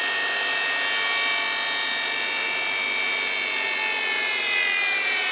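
Headstock and spindle of a 10-by-20-inch toolmaker's precision lathe running at about 3000 RPM in high range. It gives a steady high-pitched whine of several tones, which glides down in pitch near the end as the variable speed control is turned back toward 2000 RPM.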